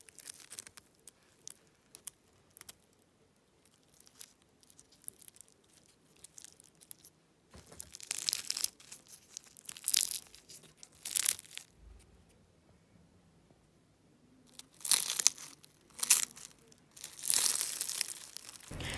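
Crisp, flaky malwi (Moroccan laminated semolina flatbread) torn and pulled apart by hand, its fried crust crackling and crunching. Faint scattered crackles at first, then several louder bursts of crunching in the second half.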